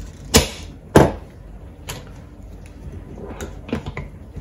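White plastic pipe clips being snapped onto a copper pipe and set against a wooden worktop: two loud, sharp clicks within the first second, then a few fainter clicks and taps.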